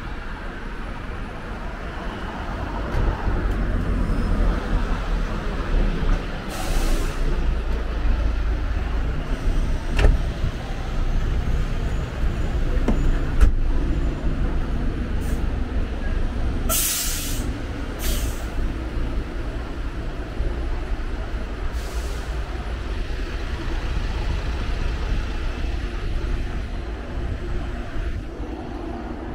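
City street traffic, with heavy vehicles rumbling past. Several short, sharp air-brake hisses stand out.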